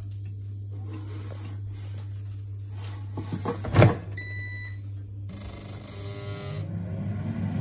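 Salter EK4628 XXL 8L air fryer running with a steady low fan hum. About four seconds in there is a sharp clunk, the loudest sound, followed at once by a short electronic beep, after which the fan's sound changes.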